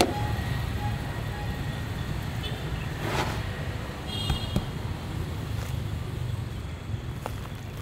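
Steady low rumble of road traffic, with a brief hiss about three seconds in and a few faint knocks.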